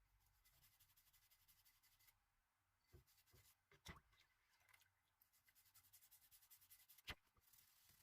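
Faint rubbing and scraping strokes of hand work on the axe, with a few light knocks about three seconds in, around four seconds and just after seven seconds.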